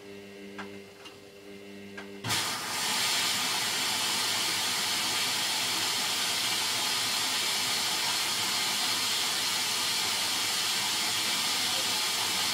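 Hoover DYN9144D3X front-loading washing machine filling: the water inlet valve opens suddenly about two seconds in and water sprays into the drum through the detergent drawer with a loud, steady hiss. Before that the machine gives a low steady hum.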